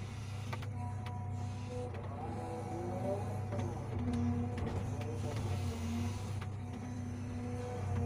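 Hydraulic excavator running under load: a steady low engine hum with a changing hydraulic whine as the bucket digs and scrapes loose soil, with a few sharp clicks and knocks.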